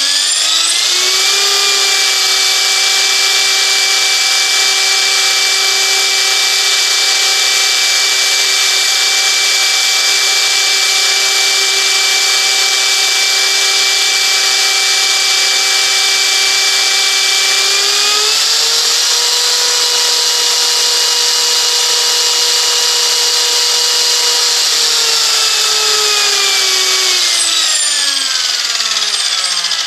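Align T-Rex 500 EFL electric RC helicopter running at speed: a steady whine of the motor, gears and torque tube tail drive, with several tones stacked over a hiss. The pitch steps up about 18 s in, holds, then falls steadily from about 25 s as the rotor winds down. The noise from the torque tube is the one whose normality the owner questions.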